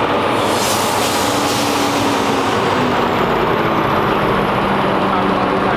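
Heavy work truck running steadily: an even, loud engine-and-machinery noise with a constant hiss over it.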